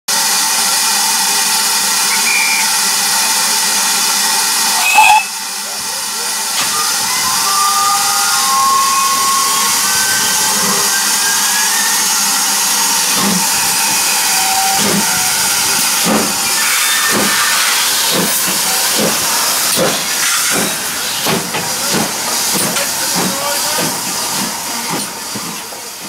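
GWR small prairie tank engine 5542 blowing steam: a loud steady hiss that cuts off sharply about five seconds in, with steam still hissing afterwards. From about halfway through, its exhaust beats come in a regular rhythm, slow at first and quickening as the locomotive pulls away.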